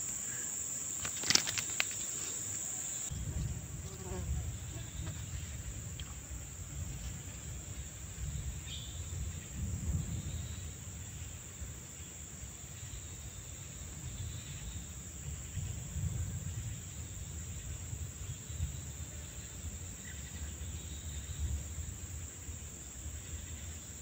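Insects chirring in a steady, high-pitched drone. About three seconds in, a low rumble joins it and runs on, and there is one sharp click about a second in.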